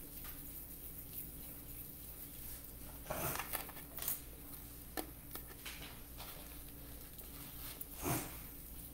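Raw ground beef being rolled into meatballs between the palms: faint, soft squishing and patting, with louder squishes about three seconds in and again near the end.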